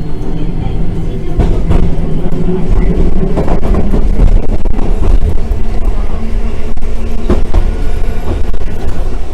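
Randen (Keifuku Electric Railroad) tram running along the line: a steady low rumble of motors and wheels on the rails that grows louder about a second in, with a few sharp clacks.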